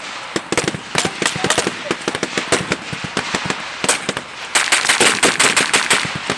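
Blank-fire gunfire in a reenacted WWII battle: many rifle shots and machine-gun bursts crackling in quick, overlapping succession, growing denser about two thirds of the way through.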